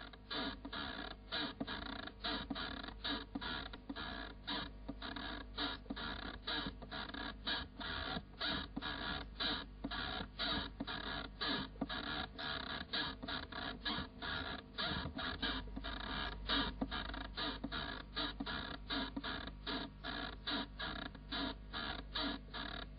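Rapid, somewhat uneven clicking or clattering, about three strokes a second, over a steady low hum that grows louder about two-thirds of the way through.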